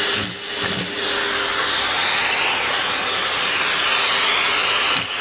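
A vacuum cleaner running, with air rushing into the end of its hose. The high whine wavers up and down in pitch through the middle.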